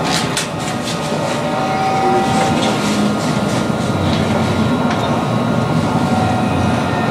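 Montpellier line 1 tram running along its track: a steady rumble of wheels on rail with a thin steady motor whine, and a few sharp clicks of wheels over rail joints in the first second.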